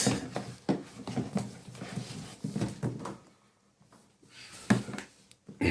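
Handling noises from an air hose and its fitting: a quick run of small clicks and knocks for about three seconds, then a few louder knocks near the end.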